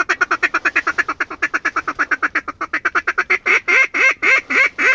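Mallard duck call blown by a hunter: a fast feed chatter of about ten short notes a second, slowing about three seconds in to a run of longer quacks, about four a second, calling to incoming ducks.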